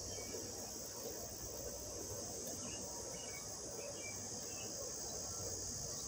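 Evening chorus of crickets and cicadas, a steady high-pitched shrill, over the low steady hum of an air conditioner. A few faint short chirps come through about halfway in.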